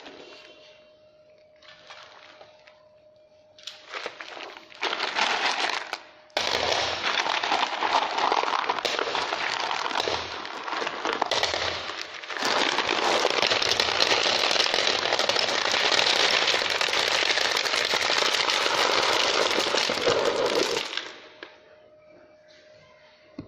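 About 3 kg of hard lumpy bait poured from a plastic crate into a bait boat's hopper, the lumps rattling and clattering against the hopper and each other. It comes in short bursts from about four seconds in, then pours out unbroken for about nine seconds before stopping suddenly.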